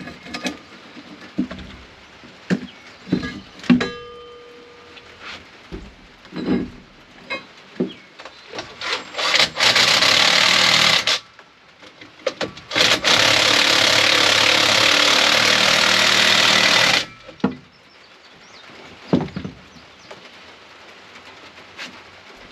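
Metal parts and tools knocking and clinking during work on bulldozer parts. This is followed by two loud bursts of a steady rasping, hissing noise from a tool, one about a second and a half long and the second about four seconds long.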